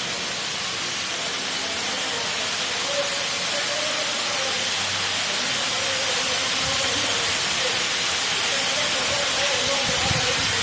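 Steady hiss of steam escaping under pressure, unbroken throughout, with faint voices underneath.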